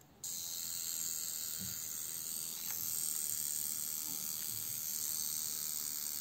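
Soviet Poljot 18-jewel mechanical alarm wristwatch sounding its alarm: the small alarm hammer vibrates rapidly, giving a steady high-pitched buzz that starts suddenly just after the start and keeps going.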